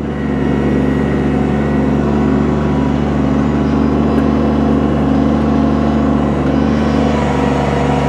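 Kubota BX subcompact tractor's diesel engine running steadily under hydraulic load, as the backhoe's boom and dipper push the tractor forward along the ditch.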